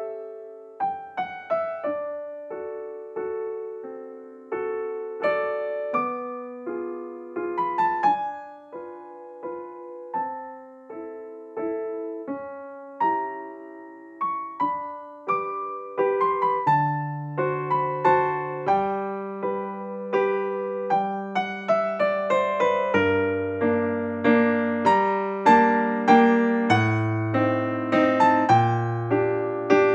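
Piano background music: a slow melody of single notes and chords, each note ringing and fading. Deeper bass notes join about halfway through, and the playing grows fuller and louder toward the end.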